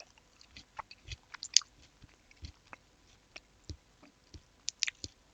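Chewing and mouth noises close to the microphone: irregular small clicks and crackles, with a few soft low thumps.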